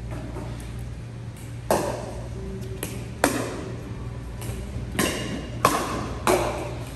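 Pickleball paddles striking a hard plastic ball during a rally: five sharp pops, the last three in quick succession.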